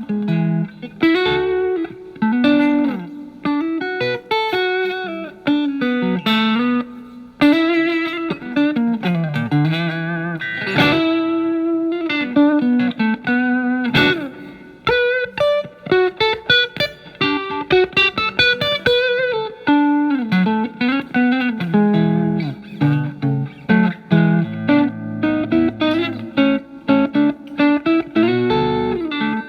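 Telecaster with single-coil pickups through a Marshall MG15FX solid-state amp on its OD1 overdrive channel, the guitar's volume rolled back to clean the tone up. It plays improvised single-note lines and chords with string bends.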